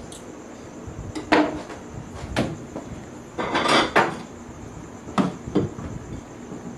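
Kitchenware clattering: several sharp clinks and knocks of a knife and dishes, with a longer scrape a little past halfway, as a roast chicken is carved and plated.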